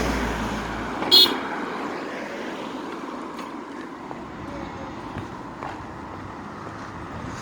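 Road traffic, with a vehicle passing and fading away, and one short, high-pitched horn toot about a second in.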